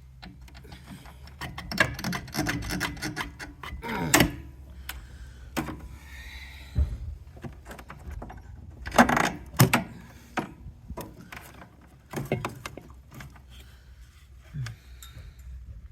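Metal parts of a soda vending machine knocking and clattering as it is taken apart for scrap: bunches of sharp knocks a couple of seconds in and again near the middle, a short scrape between them, and a few single knocks toward the end.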